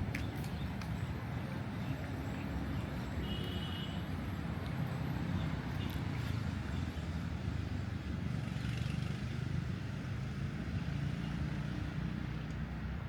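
Steady low rumble of road traffic, with a short high chirp a little over three seconds in.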